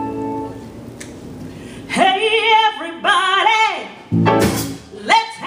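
A woman singing a blues song live with a small band of keyboard, electric guitar and drums. A held keyboard chord fades out first, and her voice comes in about two seconds in, in phrases with strong vibrato.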